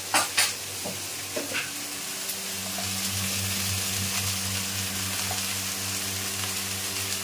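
Vegetables frying in oil in an aluminium pressure cooker, a steady sizzle, with a few sharp clicks and taps in the first second or so as turmeric goes in.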